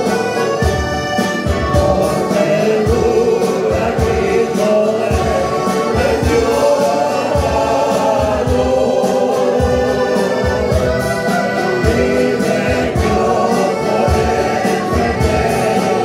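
A small church choir singing a hymn in Spanish, accompanied by piano accordion and acoustic guitar, with a steady pulse in the low notes.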